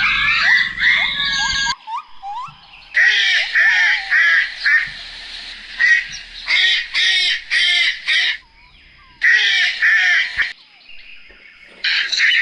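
Birds giving harsh, noisy calls in several bursts of one to two seconds each, with short pauses between them.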